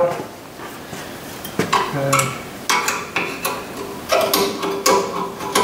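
Metal-on-metal clinks and scraping as a flat-blade screwdriver pries a rear disc-brake pad out of its caliper bracket. There are about a dozen sharp clicks, a few of them ringing briefly, bunched toward the second half.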